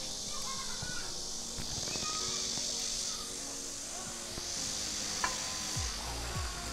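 Cicadas droning in the trees, the chorus swelling and fading twice, with a single sharp click about five seconds in.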